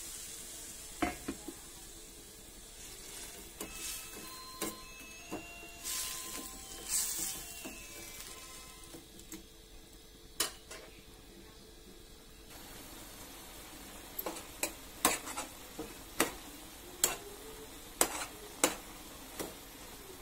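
Instant noodles simmering in water in a frying pan with a faint sizzle. In the second half a spatula stirs them, knocking against the pan in a run of sharp taps.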